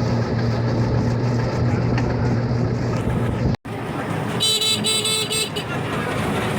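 A motor vehicle's engine running with a steady low hum. Just after halfway the sound cuts out for a moment, and then a high-pitched vehicle horn gives two short honks close together over road noise.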